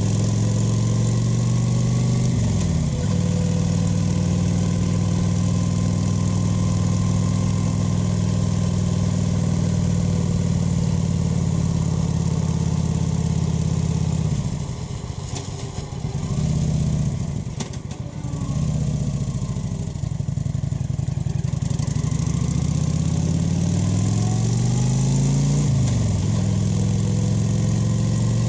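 Kawasaki VN900's V-twin engine and exhaust heard from the rider's seat while riding. It runs at steady cruising revs with a gear change about two to three seconds in. In the middle it drops off for several seconds, off the throttle, then picks up again with rising pitch and shifts once more near the end.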